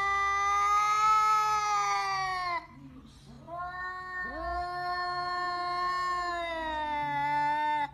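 A cat yowling in two long, drawn-out calls. The first ends about two and a half seconds in, and the second starts about a second later and holds a fairly steady pitch before cutting off near the end.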